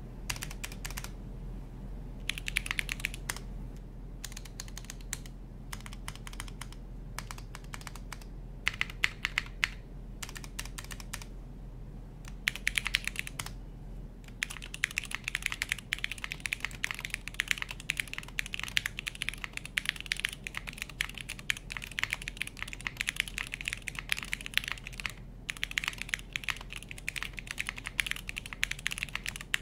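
Typing on a TKD Cycle 8 tenkeyless mechanical keyboard: rapid keystrokes in runs separated by brief pauses in the first half, then near-continuous fast typing with one short break about three-quarters of the way in.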